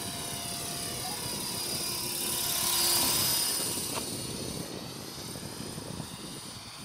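Electric radio-controlled Belt CP collective-pitch helicopter flying, a high whine of its motor and rotors that swells to its loudest about three seconds in and then fades as it moves away.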